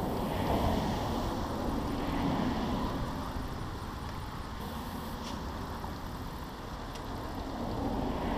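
Wind buffeting an action-camera microphone: a steady low rumble that swells in gusts near the start and near the end.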